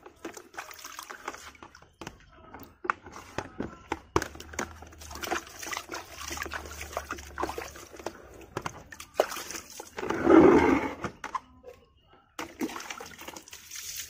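Water sloshing and splashing in a plastic tub as an air-conditioner filter is rubbed by hand and swished through it, with one louder splash about ten seconds in.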